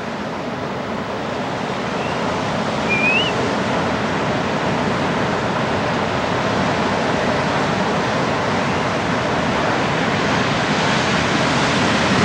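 Ocean surf: a steady rush of breaking waves and whitewater, growing slowly louder.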